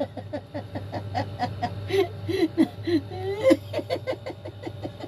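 Laughter in quick repeated bursts, rapid little pulses at first and then larger separate peals, over a steady low hum.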